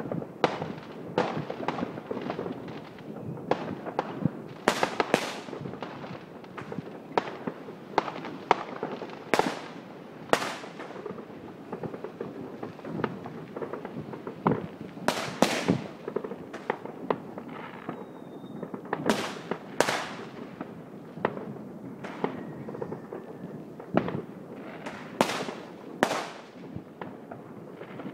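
Fireworks and firecrackers going off continuously: a dense, irregular crackle of bangs and pops, with a louder crack every second or two that rings on afterwards.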